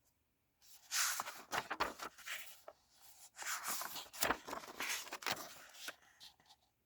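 Paper rustling and crinkling as a picture book's pages are turned and handled: a run of short scrapes and clicks starting about a second in and dying away near the end.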